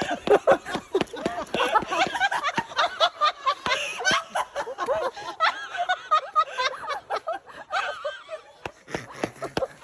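Several people laughing hard together in quick, repeated bursts of laughter.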